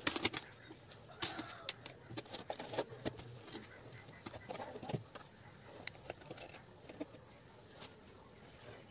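Irregular rustling and light scraping of a hand pressing and working loose potting soil in a plastic tub, busiest in the first second or so and thinning out toward the end.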